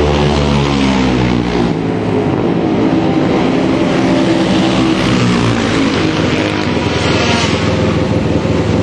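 Single-cylinder Supermono racing motorcycle engine running at low speed as the bike rides up the pit lane and pulls up, its note rising and falling with the throttle. The bike has come in because the carburettor bell mouth has fallen off.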